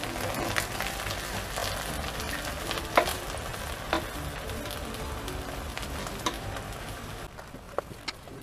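Chicken biryani sizzling in a metal pot on the stove while a ladle turns the rice through the masala, with a few sharp clicks of the ladle against the pot. The sizzle drops off near the end.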